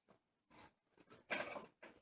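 Brief handling noises from the CPU box and its packaging being rustled and shifted: a faint rustle about half a second in, then a louder scuffling rustle lasting under half a second.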